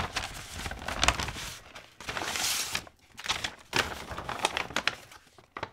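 Paper rustling and crinkling as a folded letter is drawn out of an envelope and opened flat, with short irregular scrapes and a longer rustle about halfway through.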